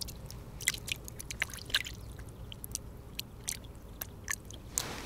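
Hands rinsing in shallow pond water: small irregular splashes and drips, heard as a scatter of sharp little ticks.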